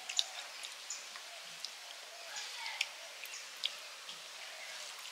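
Fingers mixing rice with fish curry on a metal plate, making faint, irregular wet clicks and squelches.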